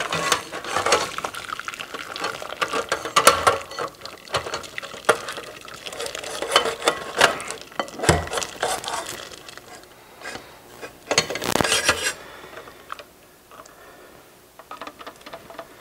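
Cooked macaroni and hot water poured from a stainless steel saucepan through a metal box grater into a bowl, with many metallic clinks and scrapes as the pan knocks against the grater. The pouring and clatter die down after about twelve seconds, leaving only a few faint ticks.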